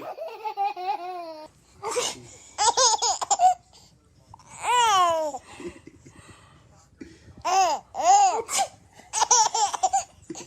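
A baby laughing and squealing in short high-pitched bursts, with a long falling squeal about five seconds in.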